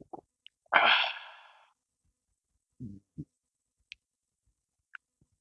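A sudden loud breathy outburst from a person close to the microphone, about a second in, fading out over about a second. Two short low throat sounds follow, then a couple of faint mouth clicks near the end.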